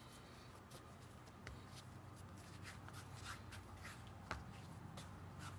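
Faint rubbing and scattered light ticks of hands kneading homemade flour-and-salt play dough, with one sharper tap about four seconds in. A steady low hum runs underneath.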